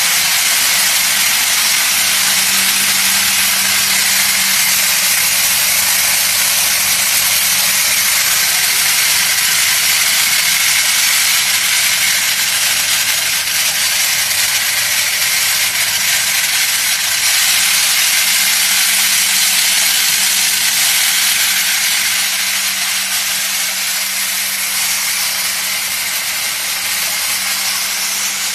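Self-suction hammer mill running, with a loud, steady rushing hiss over a constant machine hum.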